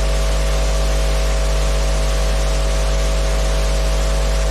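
Steady electrical hum with an even hiss, the background noise of the recording setup, unchanging throughout.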